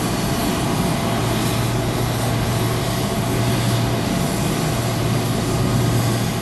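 Steady aircraft engine noise: an even hiss over a low droning hum that drops out briefly a few times.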